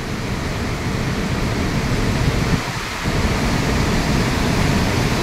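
Swollen, muddy mountain torrent rushing fast over rocks and boulders: a steady, loud rush of water.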